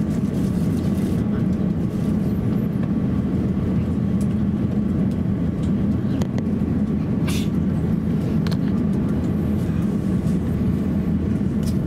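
Cabin noise inside an Airbus A350-1000 taxiing: a steady low hum from its Rolls-Royce Trent XWB engines at taxi power, with a couple of brief faint clicks in the second half.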